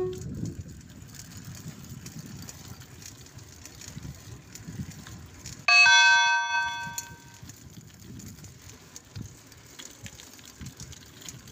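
A bicycle bell rung once, about halfway through: a bright, many-toned ding that fades over a second and a half. Under it runs a low, uneven rumble of wind and road noise from the moving bike.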